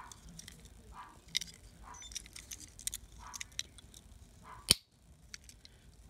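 Small clicks and taps of a Hot Wheels die-cast car's metal body and plastic base being handled and fitted back together in the fingers, with one sharp click late on.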